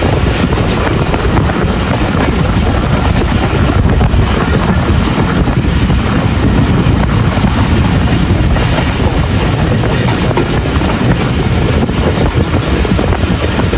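Pakistan Railways passenger train running along the track: a loud, steady rumble of the wheels and carriages.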